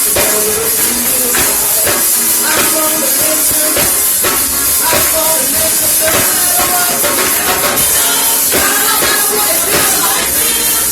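Live gospel praise music: a band with a steady drum beat, pitched instruments and a bright, constant cymbal wash.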